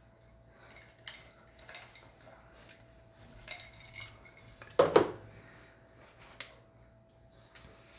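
Small clicks and rustles of a glass hot-sauce bottle being handled while its plastic cap seal is picked at and peeled off, with a pair of sharp knocks about five seconds in.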